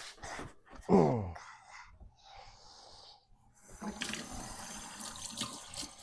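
Water running from a tap into a sink, starting a little over halfway through, likely for washing oily hands. About a second in comes a short, loud falling squeal.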